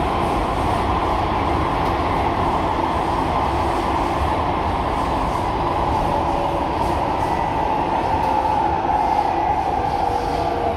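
Cabin noise inside an SMRT C151C metro train running through an underground tunnel: a steady rumble of wheels on rail, with faint whining tones over it.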